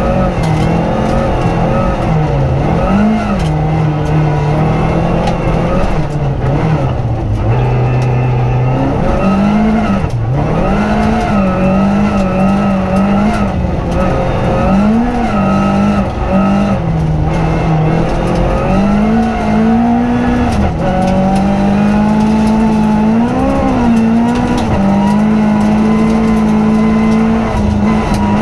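Toyota Corolla R3 rally car's engine heard from inside the cabin, held high at speed with revs repeatedly dropping and climbing again as the driver lifts and shifts. Steady tyre and road noise from the loose dirt surface runs underneath.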